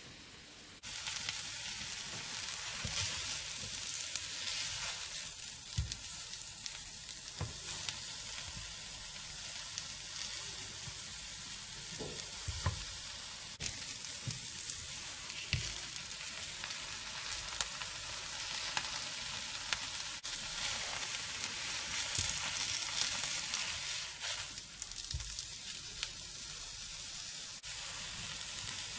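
Egg roll frying in a flat nonstick pan, a steady sizzle that starts suddenly about a second in, with occasional soft knocks of a plastic spatula against the pan as the roll is turned and pressed.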